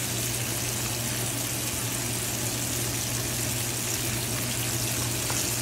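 Whole mojarra fish frying in plenty of hot oil in a pan, a steady even sizzle, over a constant low hum.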